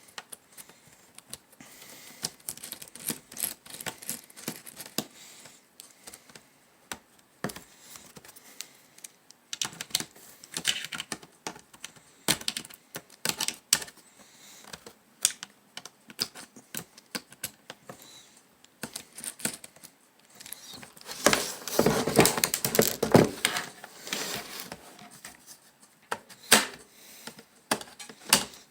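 Irregular clicks and taps of hard plastic and small metal parts being handled while a laptop is taken apart, with a busier, louder stretch of rattling clatter about two-thirds of the way through.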